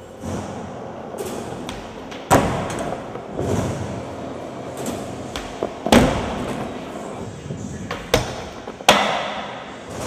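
Skateboard wheels rolling on concrete, broken by several sharp board impacts (tail pops and landings), the strongest about two, six and nine seconds in.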